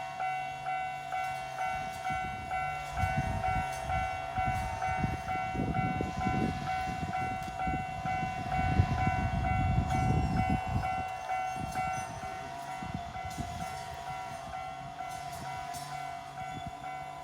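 Japanese level-crossing warning bell ringing in a steady, repeating pattern while a Nankai Kōya Line electric train passes, its rumble and wheel clatter swelling from about three seconds in and fading after about eleven seconds.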